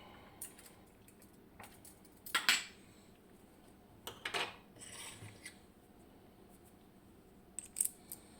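Scattered small metallic clinks and taps of tools and small parts knocking together while a Kaba 6 lock is being taken apart (gutted), with the loudest pair of clinks about two and a half seconds in.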